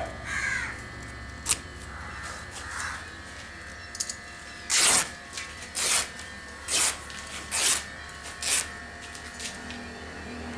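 Freshly woven cloth being torn by hand along the gap between two borders: a run of about five short ripping sounds, roughly one a second, through the middle of the stretch.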